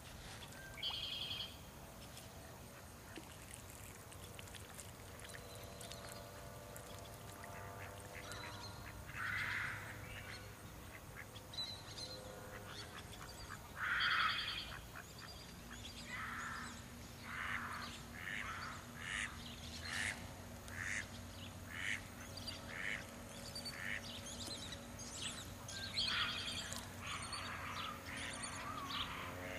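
Ducks quacking: scattered quacks at first, then a quick run of them, about one a second, through the second half.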